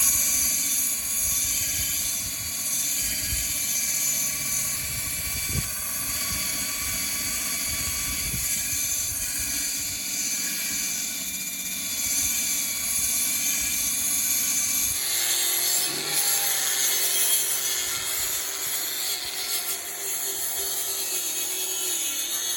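Handheld power sander running steadily, sanding rust off a steel differential cover. Its tone shifts about fifteen seconds in.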